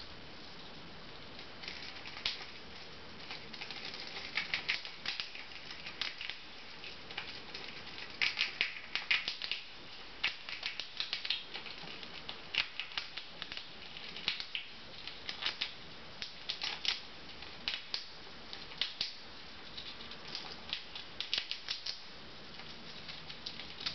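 A chipmunk gnawing and cracking a peanut shell with its teeth: irregular runs of small, sharp crunching clicks with short pauses in between.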